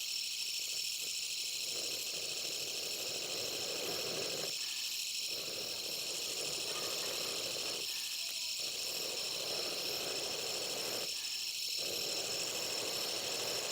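Steady chorus of insects shrilling high up. Under it runs a softer murmur that stops briefly three times, about three seconds apart.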